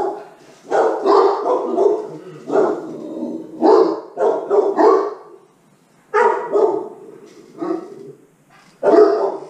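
Pet dogs barking loudly and repeatedly, in quick clusters of barks with short pauses between them, as they alert at something outside.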